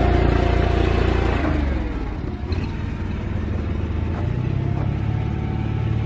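Engine of an inline bale wrapper running steadily. It gets quieter about a second and a half in, and its hum shifts up slightly about four seconds in.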